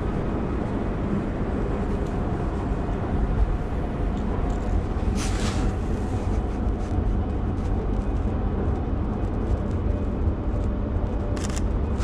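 Steady low rumble of a railway station platform with a train standing at it. A brief hiss comes about five seconds in and two more near the end.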